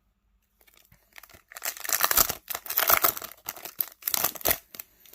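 A Select Footy Stars jumbo trading card pack being torn open: a run of crackling, crinkling tears of the wrapper, loudest in the middle.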